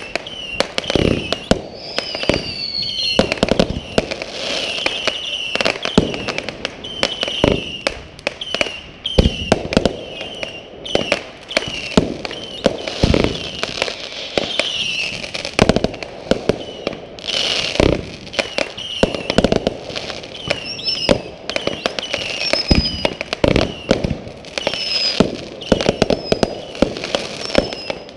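Fireworks going off in a dense, continuous run of bangs, pops and crackles, with short high whistling tones repeating in between.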